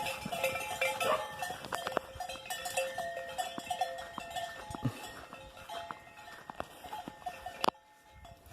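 Farm animals calling around a herd of cattle, with a sharp knock near the end.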